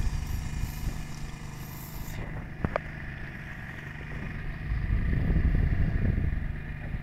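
Steady low drone of a fishing boat's engine running, with a single sharp click about two and a half seconds in and a louder low rumble for a couple of seconds from about five seconds in.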